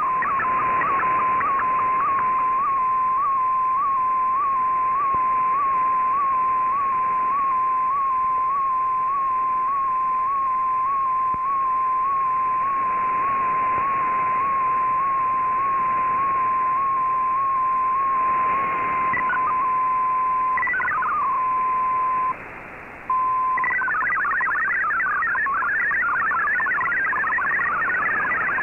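Shortwave MFSK digital-mode signal from the receiver's audio over background hiss. It is a steady tone near 1 kHz with a soft blip about every two-thirds of a second, the sound of an MFSK picture being sent. About twenty seconds in it breaks up and drops out briefly, then turns into the fast warbling multi-tone chatter of MFSK64 text data.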